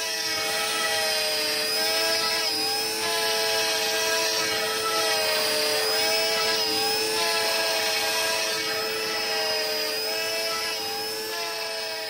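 CNC router spindle milling MDF with a small end mill. It gives a steady whine whose pitch dips and recovers every second or so as the cutter loads up in the cut, over a steady drone. The sound fades in at the start.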